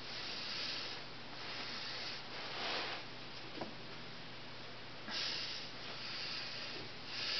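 Soft breathing close to the microphone: hissy breaths every second or two over a steady low hum, with a faint click about three and a half seconds in.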